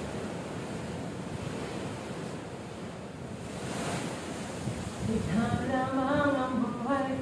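Steady wind and sea noise, with wind buffeting the microphone and a swell about halfway through. About five seconds in, a man's voice starts in on a slow tune, holding its notes.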